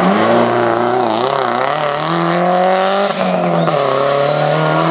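A rally car's engine running hard at high revs. Its pitch wavers, dips briefly about three seconds in and climbs back again.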